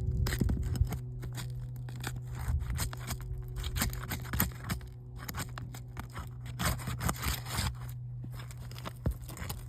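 Asphalt roof shingles being worked loose with a roof snake: irregular scraping and tearing with scattered clicks and knocks, over a steady low hum.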